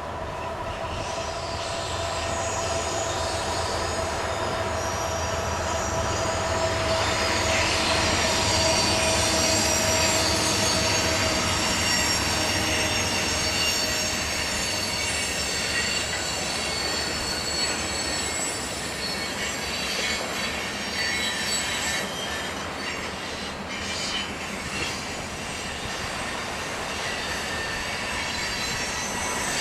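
Freight train cars rolling past, their steel wheels squealing against the rails in several steady high-pitched tones over a continuous rolling rumble.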